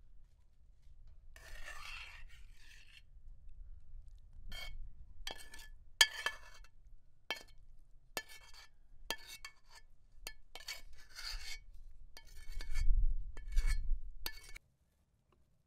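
A cooking utensil scraping and clinking against cookware. The clinks are irregular and each rings at the same few pitches. The sound cuts off suddenly near the end.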